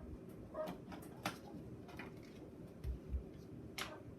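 A few scattered sharp clicks of small toy pieces being handled and snapped together, with two soft low thumps close together about three seconds in.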